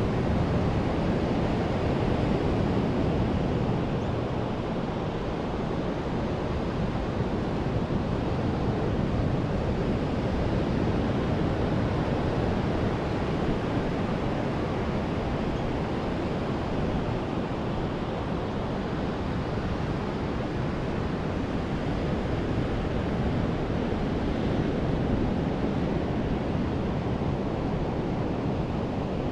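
Ocean surf washing onto a beach: a steady rush of waves that swells and eases gently in loudness.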